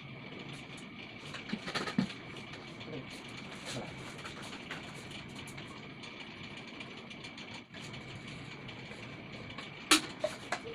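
Sharp clicks and knocks of metal and plastic parts being handled, a cluster about two seconds in and a louder knock near the end, over a steady machine hum with a faint high whine.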